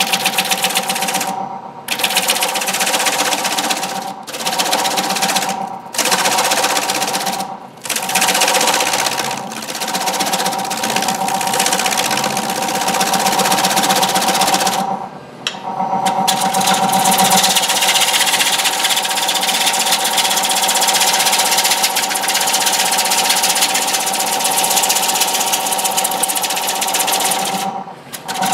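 A turning tool cutting the face of a large basswood platter spinning on a wood lathe: a continuous rasping, hissing cut over the steady hum of the lathe. The cut breaks off briefly several times, and longer about halfway through, as the tool comes off the wood between passes.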